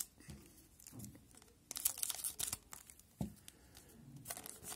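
Foil wrapper of a Pacific Adrenaline hockey card pack crinkling in the hand in short bursts, with a sharp click a little after three seconds in.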